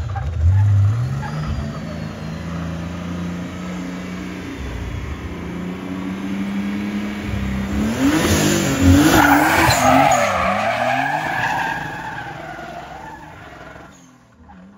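Historic rally car engine revving hard through the gears as it comes closer, loudest about eight to ten seconds in, with revs swinging up and down and tyres squealing, then fading away.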